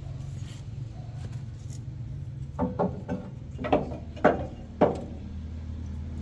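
About seven sharp metallic knocks with a short ringing after each, bunched in the middle seconds, from steel truck parts being struck during leaf-spring work. A steady low engine hum runs underneath.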